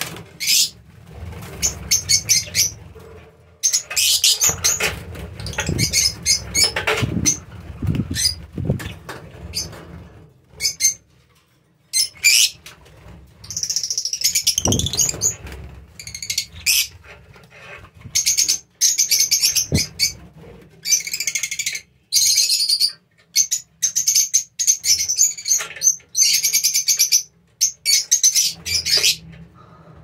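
Fischer's lovebirds calling in shrill bursts of rapid chirps, over and over with short pauses, along with the flapping of wings as birds fly.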